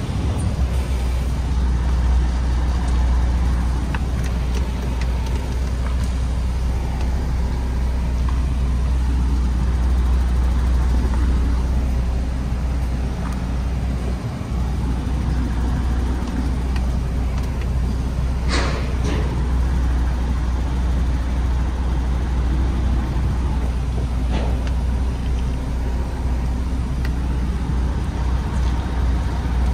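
MAN TGX 510 truck's straight-six diesel engine running under way, a steady low rumble with road noise. A short sharp noise cuts through about two-thirds of the way in.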